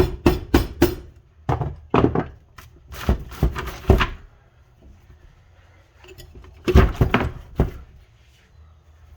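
Sharp knocks on a Honda Civic manual transmission during reassembly, in quick runs of three to five strikes: a part being knocked down into place. The runs come right at the start, around two and four seconds in, and near the end.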